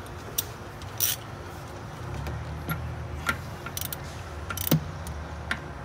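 Socket wrench on an extension clicking and clinking irregularly, about seven times, as a new radiator fan switch is tightened into the thermostat housing.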